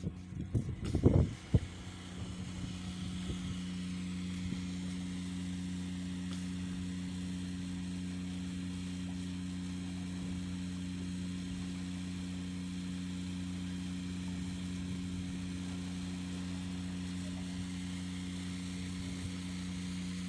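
Steady low hum of a ship's onboard machinery running while the vessel lies at anchor, with a few loud knocks about a second in.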